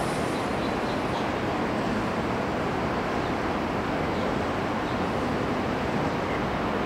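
Steady road traffic noise, an even hum with no distinct passing vehicle or other event.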